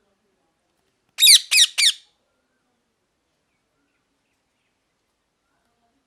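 Pet parrot giving three quick calls in a row, about a second in.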